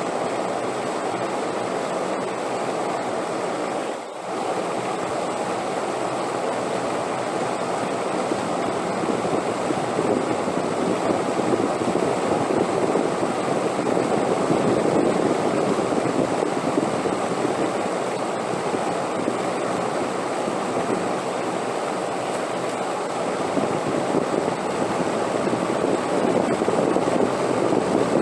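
Steady rushing wind noise that swells and eases slowly in strength, with a brief dip about four seconds in.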